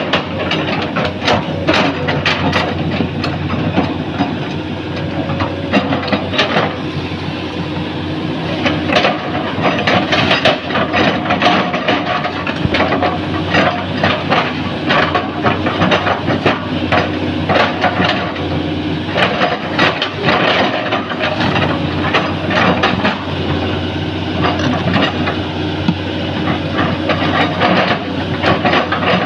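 Hydraulic excavator's diesel engine running steadily while its bucket repeatedly chops and crunches into a felled oil palm trunk and fronds, breaking the trunk into chips, with frequent sharp cracks and snaps of splitting wood.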